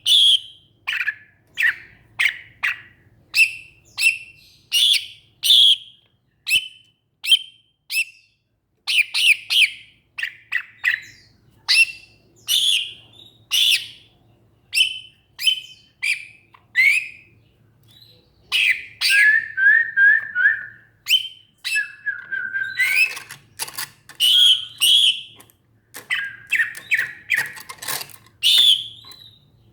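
Cucak ijo (green leafbird) singing loudly and continuously: a rapid string of short, sharp whistled and chattering notes, some sweeping up or down, with a few lower, flatter notes partway through.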